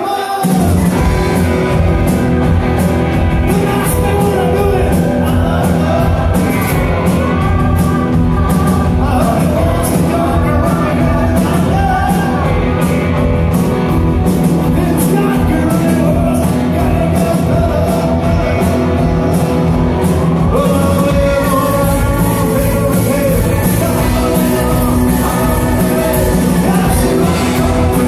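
Live rock band coming in all at once at full volume: drums, bass and electric and acoustic guitars with keyboards, and a male lead voice singing over a steady beat.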